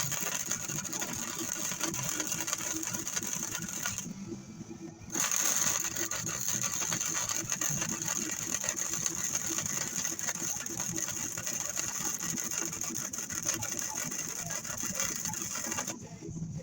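Electric arc welder running in a steady crackle while welding the truck's steel frame rails, with a one-second pause about four seconds in. It cuts off suddenly near the end when the shop's breaker trips.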